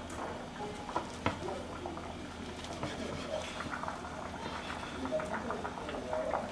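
Kitchen knife slicing a rolled omelette on a wooden cutting board, the blade knocking sharply against the board twice about a second in. A pot of stew bubbles steadily underneath.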